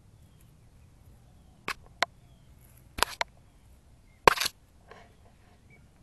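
A cat knocking, pawing and rubbing against a 360 camera set low on gravel: a few sharp knocks and short scrapes close to the microphone, the loudest a little past four seconds in.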